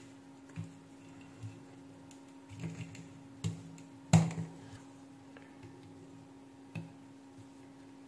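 Irregular clicks and knocks of test leads and crocodile clips being handled against a circuit board and workbench, the loudest about four seconds in, over a faint steady hum.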